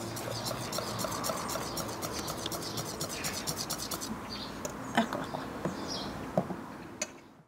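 Wire balloon whisk stirring batter in a stainless steel bowl: rapid ticking and scraping strokes of the wires against the metal for about four seconds, then slower, scattered clicks with one sharper knock.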